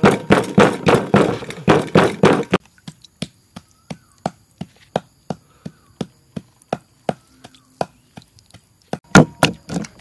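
Wooden pestle pounding chili and garlic in a clay mortar: sharp, even thuds about three or four a second. About two and a half seconds in they drop to faint, sparser taps, and loud pounding starts again near the end.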